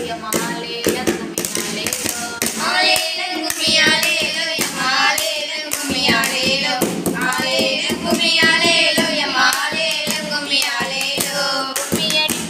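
A group of schoolgirls singing a Tamil kummi folk song together, with hands keeping a steady beat under the singing.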